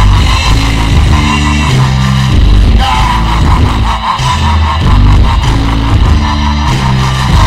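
Bass-boosted wrestling entrance theme music: a loud rock track with a heavy bass line moving from note to note.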